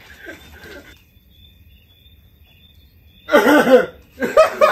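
A person's voice calls out loudly about three seconds in, with more short vocal sounds near the end. Faint, high, steady chirping of night insects fills the quiet before it.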